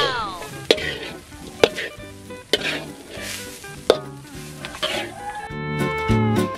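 Metal spatula stirring and scraping grated coconut around a steel wok as it dry-roasts over a wood fire, with sharp clinks of the spatula against the pan about once a second. Background music with guitar comes in near the end.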